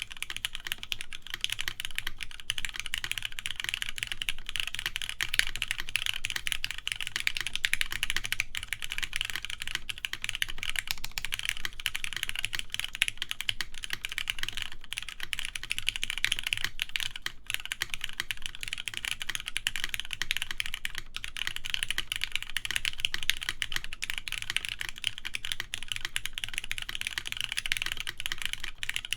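Continuous fast typing on a TGR Jane v2 custom mechanical keyboard with lubed Cherry MX Black linear switches, a full polycarbonate plate and Cherry G81-3100 keycaps: a dense stream of key clacks with no long pauses.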